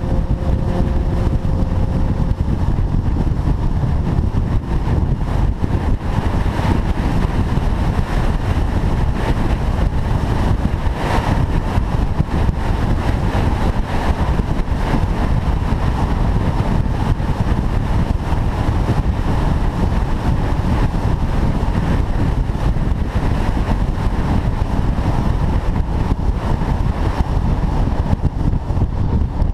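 Car driving at steady speed: a loud, even rumble of engine, tyres and wind with no revving.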